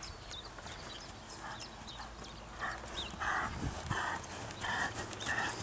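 Ridden horse moving at a trot over grass, its strides making a soft, even rhythm about every two-thirds of a second that grows louder about halfway through as the horse nears.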